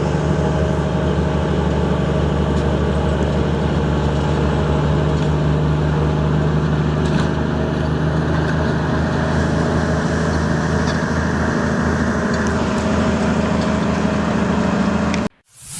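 Heavy diesel engine of a bulldozer running steadily with a deep hum. It cuts off abruptly near the end, followed by a brief burst of hiss.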